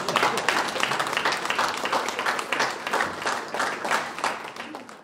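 Wedding guests applauding, a room full of hand clapping that thins out and fades toward the end before cutting off.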